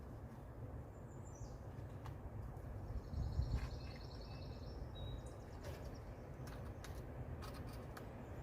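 Faint low background rumble with a small bird calling: a short high chirp, then a quick trill a few seconds in. A few light clicks follow near the end.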